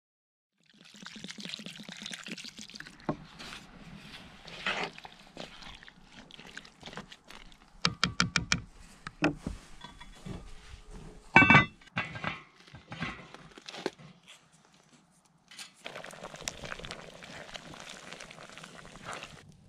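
A spoon stirring chunky, wet chili ingredients in a cast iron Dutch oven: squelching and scraping against the pot, with a run of sharp clicks about 8 seconds in and a louder knock a few seconds later.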